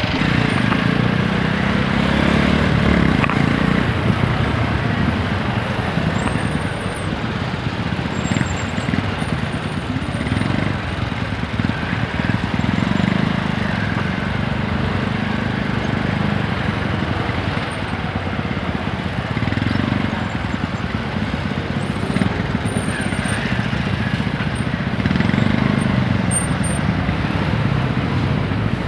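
TVS Apache 160 4V's single-cylinder engine running under way, its revs rising and falling several times as the bike speeds up and slows in traffic, over steady wind and road noise.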